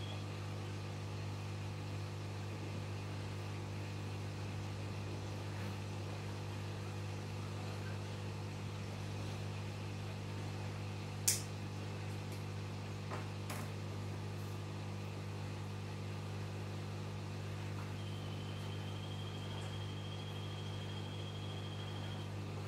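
Steady low electrical hum of running aquarium equipment, such as the filter or air pump, with one sharp click about eleven seconds in and two fainter ticks shortly after.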